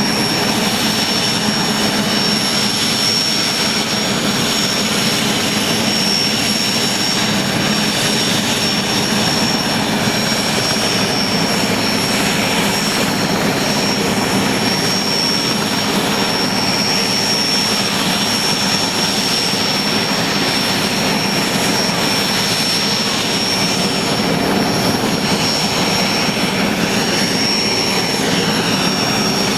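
IAR 330 Puma helicopter's twin turboshaft engines running steadily, a constant high-pitched turbine whine over a steady rumble of engine and rotor noise.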